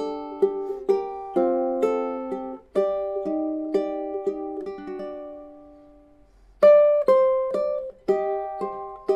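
Background music: a slow melody picked note by note on a plucked string instrument, each note dying away. About halfway through the notes fade almost to nothing, then the tune picks up again with a louder note.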